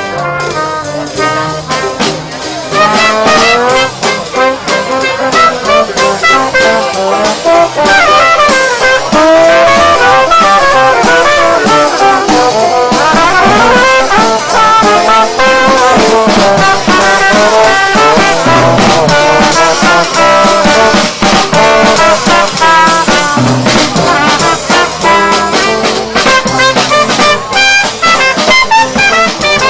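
Jazz band playing: a trumpet and a trombone run melody lines together over a drum kit with busy cymbals.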